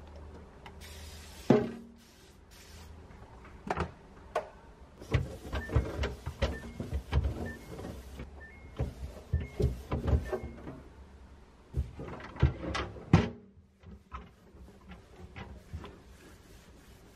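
Plastic refrigerator crisper drawer being wiped out with a cloth and handled: an uneven run of knocks, clicks and rubbing on the hard plastic, with a dense patch of them through the middle and two sharper knocks, one about a second and a half in and one near the end.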